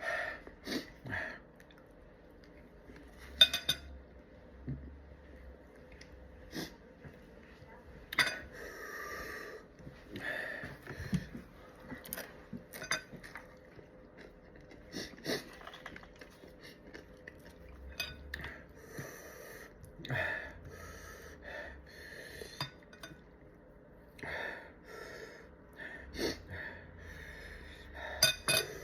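Someone eating: forks or spoons clinking against a plate at irregular moments, with sharp crunches and breathing between bites.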